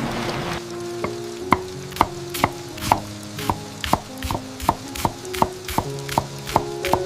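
Knife chopping on a cutting board in steady strokes, about two a second at first and getting quicker, over soft sustained music notes. A rain-like hiss stops about half a second in, just before the chopping begins.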